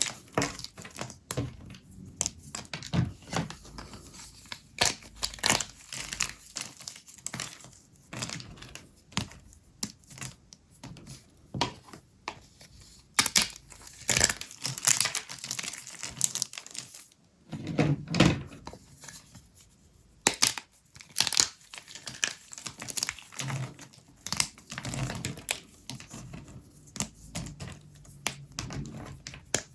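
Brittle, starchy microwave-puffed soap cracking and crumbling as it is broken and crushed by hand, in irregular runs of sharp crisp snaps and crackles, thickest about halfway through.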